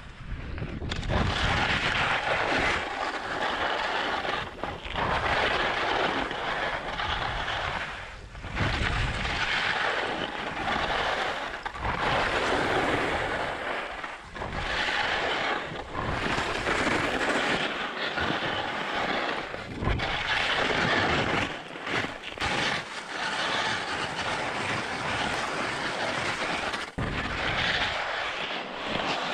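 Ski edges scraping over icy, hard-packed snow through a series of turns on a steep descent, swelling with each turn about every two to three seconds. Wind rumbles on the microphone at times.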